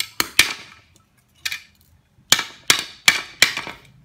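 Sharp metal knocks of a short metal pipe used as a hammer, beating a thin metal rod laid across a wooden plank: three quick strikes at the start, a lighter one about a second and a half in, then four more in a steady run in the second half.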